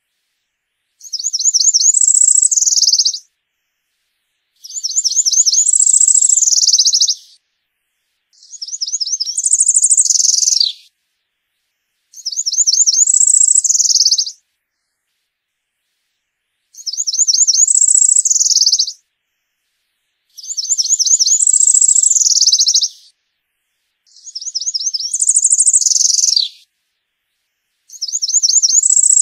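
A small New World wood-warbler singing a high song about every four seconds. Each song lasts about two seconds: a fast run of repeated notes climbing to a short, higher trill, some ending with a quick downward slur.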